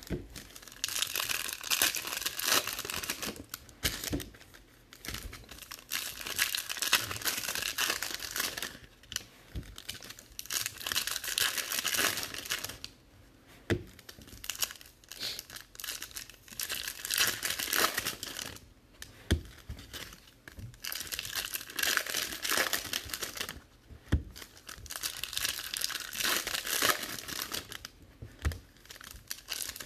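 Foil trading-card pack wrappers crinkling and tearing as packs are ripped open, in stretches of a few seconds with short pauses between, and a few sharp taps.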